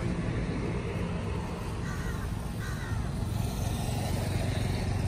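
Steady low outdoor rumble, with two faint caws about two and three seconds in.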